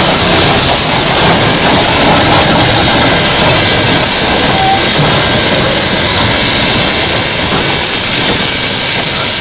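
Three-cylinder geared Shay steam locomotive working hard at close range, its rapid exhaust blending into a loud, steady roar, with a steady high-pitched whine underneath.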